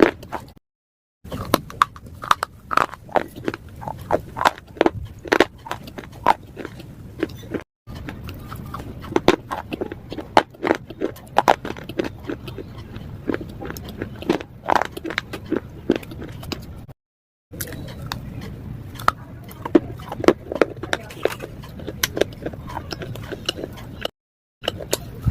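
Pieces of slate being bitten and chewed: a dense run of sharp, crisp crunches, broken by a few moments of dead silence.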